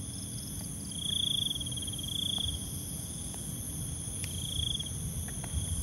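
Insect chorus: a steady high-pitched buzz of insects, with a cricket's pulsing trill that comes three times in short bursts of about half a second.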